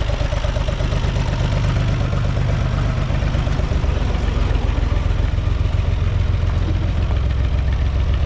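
UTB 445 tractor's four-cylinder diesel engine idling steadily.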